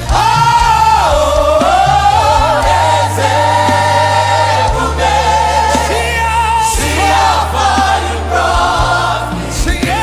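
Live gospel worship music: a choir and singers holding long, wavering notes over a band with steady sustained bass.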